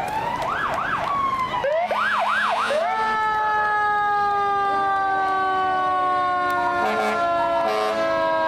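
Emergency vehicle siren: a rising wail, two short runs of fast up-and-down yelps, then a long tone that slowly falls in pitch.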